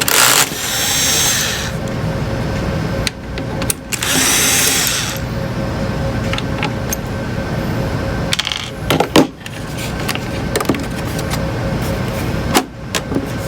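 Electric screwdriver running in two short bursts of about a second each, backing out screws, followed by scattered clicks and knocks of parts being handled.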